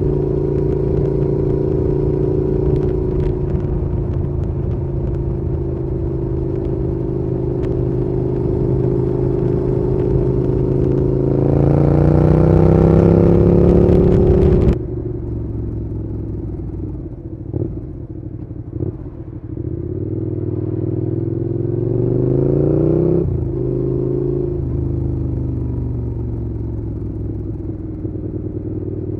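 Suzuki Gladius 650's V-twin engine running with no words over it. Its pitch holds steady, then climbs under throttle from about eleven seconds in and cuts off suddenly to a quieter, duller sound. A second, shorter climb comes later before it settles back to a steady note.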